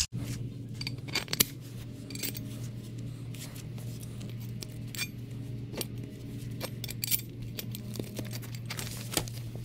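Scattered clinks and taps of small metal parts being handled (steel washers and sleeves on a rusty suspension strut rod), over a steady low hum.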